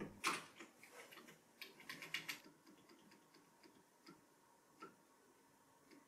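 Faint clicks of computer keyboard keys being pressed, a quick run of taps about two seconds in and two single taps later.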